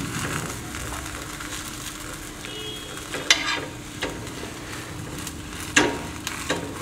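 Oil sizzling steadily under a stuffed missi roti frying on a tawa, with a metal spoon clinking and scraping against the tawa a few times, sharpest about three seconds in and again near six seconds.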